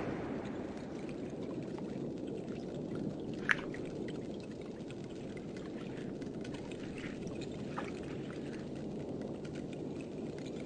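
Underwater sound of pistol shrimp: a steady watery rush, with one sharp claw snap about three and a half seconds in and a fainter snap near eight seconds.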